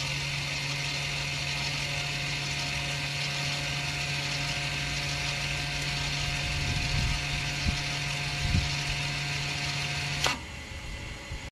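The electric parking brake motor of a 2013 Mercedes-Benz ML350 running steadily as it retracts the parking brake into pad-replacement position: a steady hum with hiss that cuts off suddenly about ten seconds in.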